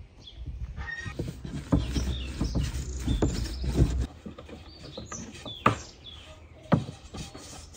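Long, thin wooden rolling pin rolling dough out on a round wooden board. For the first few seconds there is a low rumble with quick knocks, then two sharp wooden clacks near the end.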